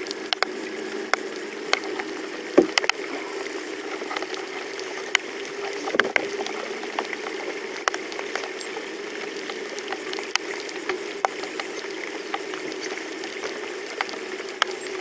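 Water sloshing and lapping against a small fishing boat's hull, with scattered light ticks, a couple of louder knocks and a steady hum underneath.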